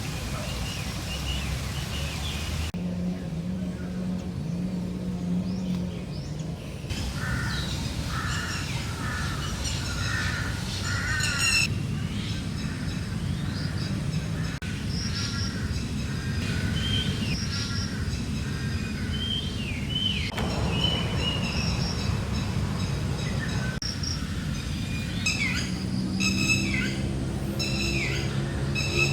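Several birds chirping and calling outdoors, with short repeated note series and rising chirps, over a steady low background rumble. The background shifts abruptly a few times.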